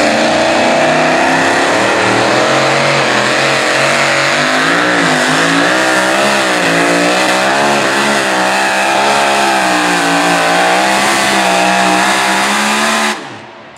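Supercharged engine of a super modified 2WD pulling truck running flat out under the load of the sled, its pitch wavering up and down. It cuts off abruptly near the end as the pull ends.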